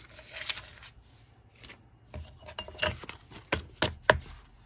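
A handful of short knocks and taps of tools and paper being handled on a work table, most of them bunched in the second half.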